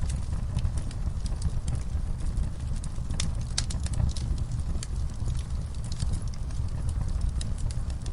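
Wood fire in a fireplace crackling, with irregular sharp pops and snaps over a steady low rumble of the burning.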